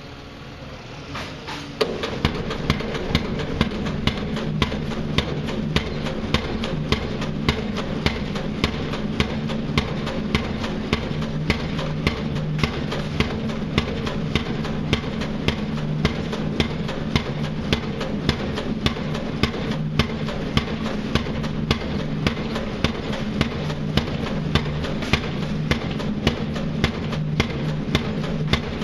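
Pile driver starting up about two seconds in, then hammering steadily at roughly one blow a second over the drone of its running engine.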